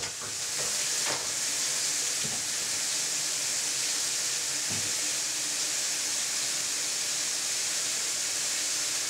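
Steady high hiss with a few faint knocks and taps, about one, two and five seconds in, from work on an old drop-in bathroom sink that has been pried up from a laminate countertop.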